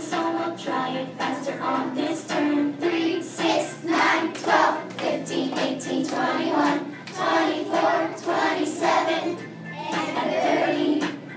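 A class of young children singing a skip-counting-by-threes song along with recorded music, clapping their hands in time.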